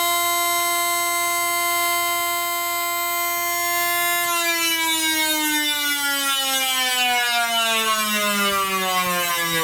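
Old washing machine's motor and spinning drum whining at one steady high pitch, then winding down from about four seconds in, the whine falling smoothly in pitch as it coasts.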